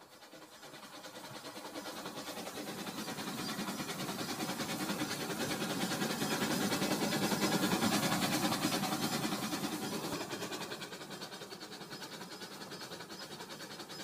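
Toy train running on plastic track: a small motor whirring with fast clattering of the wheels, growing louder as it approaches, loudest about eight seconds in as it passes, then fading.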